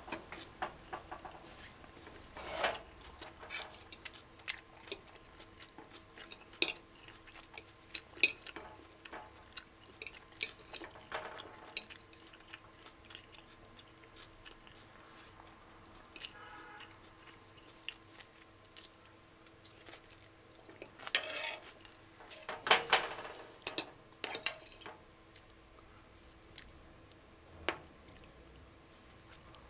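Metal fork clinking and scraping against a ceramic plate while eating, in scattered sharp ticks, with louder bursts of scraping about 21 and 23 to 25 seconds in.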